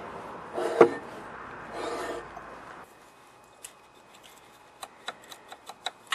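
A steel feeler gauge blade rubbing and scraping as it is worked between the rocker arm and valve stem of an overhead-valve lawnmower engine to check valve lash. It is followed by a series of light metallic ticks in the second half.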